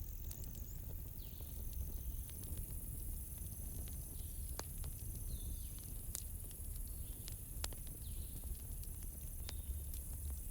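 Campfire crackling, with sharp pops every second or two over a low steady rumble, while a cricket trills on and off in a high thin tone and a few short falling chirps sound in the background.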